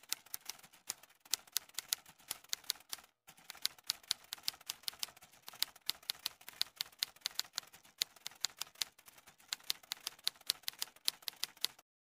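Typewriter sound effect: a rapid, irregular run of key clacks, with a brief break about three seconds in, stopping just before the end.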